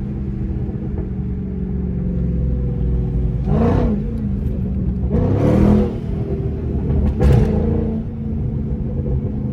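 V8 muscle car engine running with a deep steady rumble, revved up and back down twice, about three and a half and five seconds in, with a short sharp hit near seven seconds.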